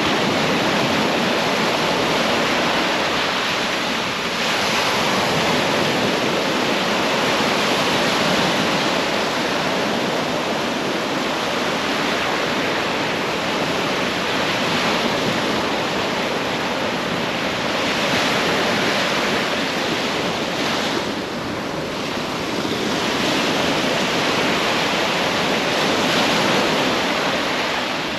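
Sea surf washing onto a beach: a steady rushing noise of waves that swells and eases every few seconds.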